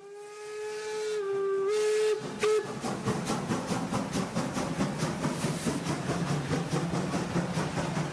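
Steam locomotive whistle: one long blast that fades in, dips slightly in pitch and comes back up, then a short toot. The locomotive then sets off chuffing in a steady, even beat.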